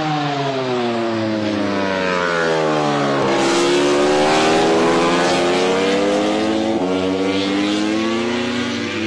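MotoGP racing motorcycle engine. Its pitch drops for about three seconds as it slows, then rises steadily as it accelerates, with a small jump in pitch near seven seconds in.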